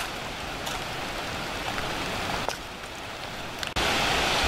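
A steady hiss with a few faint clicks, which jumps abruptly louder and brighter about three-quarters of the way through.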